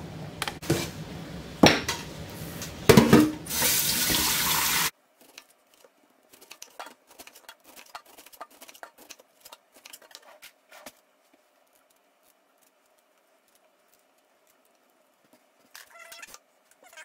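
Water runs from a kitchen tap into a stainless steel sink among loud knocks, then stops abruptly about five seconds in. After that, only faint taps of a chef's knife on a wooden cutting board as a pineapple is sliced and skinned.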